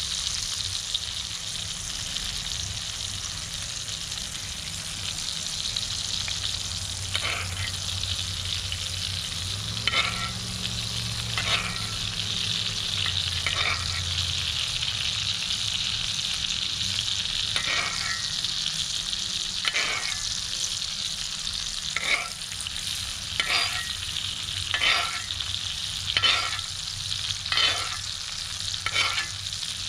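Steak frying in butter in a cast iron skillet over a wood fire, with a steady sizzle. Short, sharper pops or taps come every second or two from about a quarter of the way in, more closely spaced near the end.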